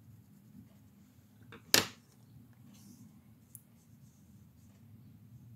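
A single sharp click about two seconds in, from drawing tools being handled as a pencil is swapped for a water brush pen. Otherwise faint rustles over low room hum.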